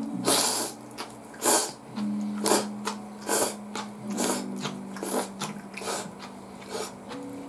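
Ramen noodles slurped from chopsticks and a soup spoon: about eight short, sharp slurps, roughly one a second, over quiet background music.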